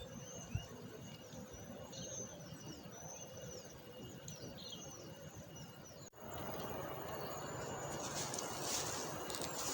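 Small birds chirping repeatedly over a faint outdoor ambience. About six seconds in, the sound cuts to a louder, steady rushing noise, with hissing surges near the end.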